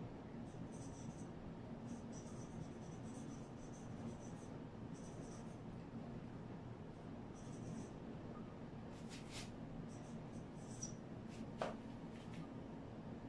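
Marker pen squeaking on a whiteboard in a series of short handwriting strokes, with a few sharp taps in the last few seconds, the loudest near the end.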